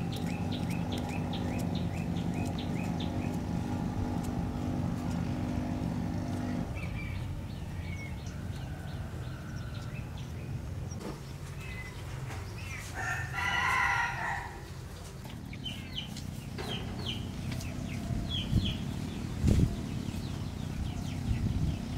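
A rooster crows once, about a second and a half long, midway through. Under it a low steady hum stops about a third of the way in.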